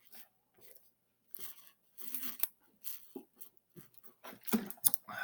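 Irregular crunching and rustling handling noises: a string of short scrapes and crackles, sparse at first and busier and louder in the last second, with one sharp click near the end.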